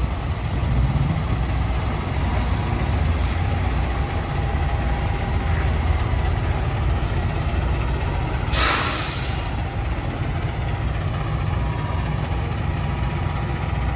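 Peterbilt semi-truck's diesel engine running with a steady low rumble, and a single sharp hiss of air from the air brakes, about a second long, a little past halfway through.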